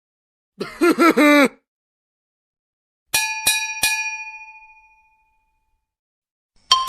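A short voice-like sound effect of about a second, then a small bell struck three times in quick succession, its clear ring dying away over about two seconds.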